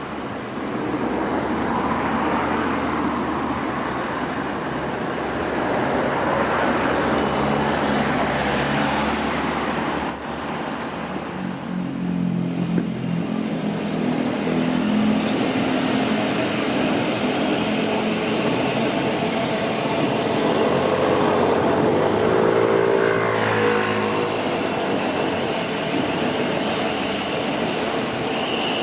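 Electric passenger train running through the station: a steady rumble of wheels and motors, with humming tones that waver up and down about two-thirds of the way through.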